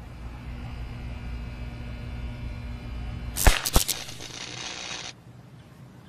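Steady electrical buzz at power-pole equipment, then two loud sharp cracks about three and a half seconds in and a hissing buzz that cuts off suddenly about five seconds in: an electrical arc flashing over at the pole top where a woodpecker was perched.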